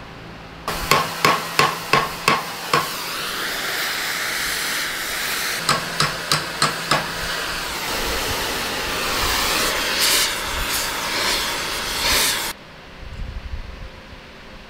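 A hammer strikes steel clamped in a bench vise: a quick run of about eight ringing metallic blows, a second run of about five a few seconds later, and a few more after that. Under the blows is a steady hiss, which cuts off suddenly near the end.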